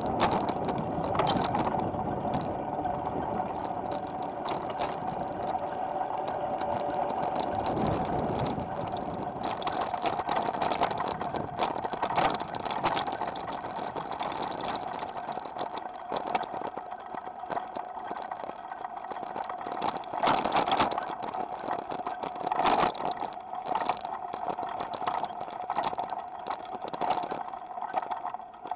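Loaded touring bicycle being ridden, its rear carrier and strapped-on bags rattling and jolting over rough pavement, over a steady hum of riding noise.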